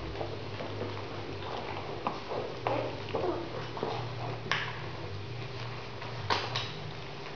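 Doberman puppies squirming against their mother close to the microphone, making soft scattered rustles. A few sharp knocks come about four and a half and six and a half seconds in, all over a steady low hum.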